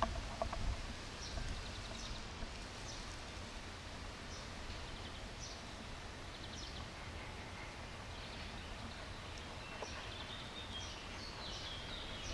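Outdoor woodland ambience: small birds chirping and trilling now and then over a steady low background rumble, with a few soft knocks right at the start.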